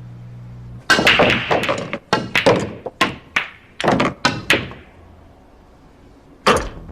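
Billiard balls and cue clacking in a rapid series of sharp knocks with short ringing tails, over about four seconds, then one more knock near the end. A low hum stops about a second in.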